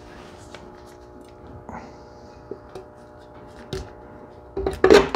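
Light clicks and knocks from a metal starter housing being handled, then a louder clatter of metal on metal near the end as the Delco Remy starter is set down into an empty metal paint can, its mounting ears coming to rest on the rim.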